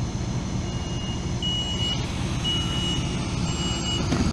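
Train door warning beeps, a high tone sounding about once a second, four times, over the steady low hum of the standing train: the signal that the doors are about to close.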